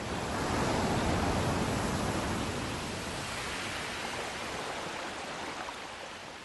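Rushing noise of ocean waves, swelling to its loudest about a second in, then slowly fading away.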